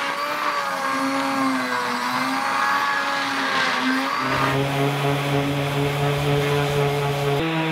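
Electric random orbital sander running against a boat's fibreglass hull, sanding around a through-hull hole; its pitch wavers as the pressure changes, then about four seconds in it shifts to a steadier, lower hum.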